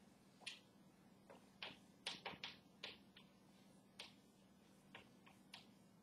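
Chalk tapping and scraping on a blackboard as a heading is written: an irregular run of short, sharp clicks, busiest around two seconds in, over a faint steady hum.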